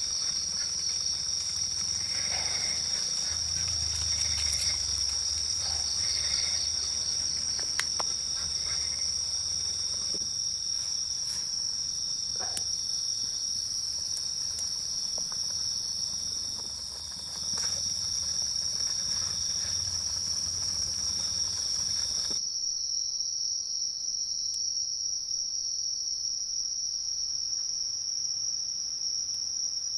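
A steady, high-pitched chorus of forest insects such as crickets, running without a break. There are a few faint knocks in the first half, and the low background noise drops away abruptly about three-quarters through while the insect sound carries on.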